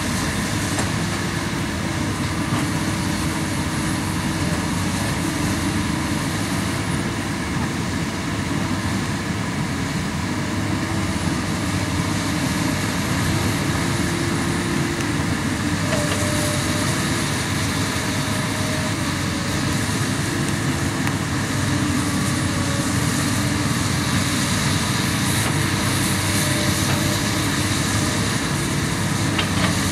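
Komatsu PC200 hydraulic excavator's six-cylinder diesel engine running steadily at working revs as the machine digs and swings loads of soil, with a faint high whine that rises and falls.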